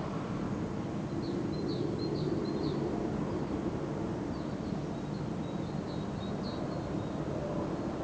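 Small songbird giving two runs of short, high chirps over a steady low hum from a paper mill.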